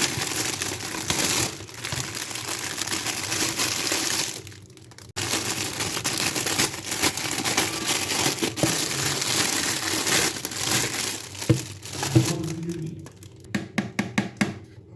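Packaging crinkling and rustling as it is handled and crushed, with a brief pause a little before the middle. Near the end it gives way to a run of small clicks and taps.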